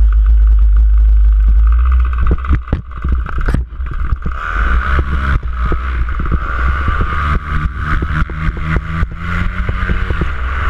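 Paramotor engine running on a powered paraglider. Its note rises about four to five seconds in as the throttle comes up for the launch run. Many irregular thumps and clatter run over it.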